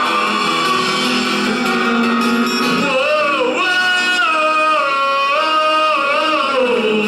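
Live worship song: a singer holds long notes that waver and glide in pitch, over steady instrumental accompaniment.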